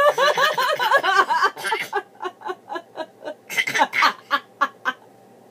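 A baby and a woman laughing together: a fast run of cackling laughs, then shorter, quieter laugh pulses that fade out near the end.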